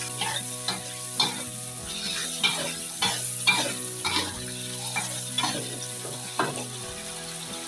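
Metal spatula scraping and knocking against an aluminium wok, about twice a second, while stirring a spice paste of shallots, garlic and tomato that sizzles steadily in hot oil.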